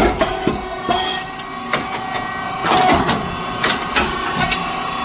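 Rice cake popping machine running a production cycle: a series of sharp clacks and short bursts from the moulds and press, starting suddenly, over the steady hum of its hydraulic pump and motor.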